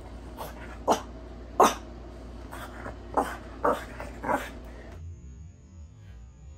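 French bulldog giving five short, sharp barks spread over about four seconds, in excited play.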